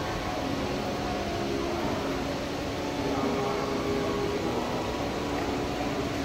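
An indoor fountain's rows of arcing water jets splashing steadily onto its stepped basin, an even hiss that does not change.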